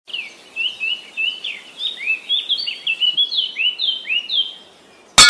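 Birdsong: a quick run of short, high chirps, some sweeping down in pitch and some sweeping up, about three a second. It stops about half a second before a sudden loud crash cuts in at the very end.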